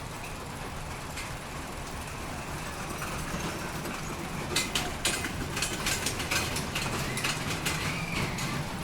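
Fairground ride machinery running with a steady low engine hum. About halfway through, a quick run of sharp clacks and knocks joins it.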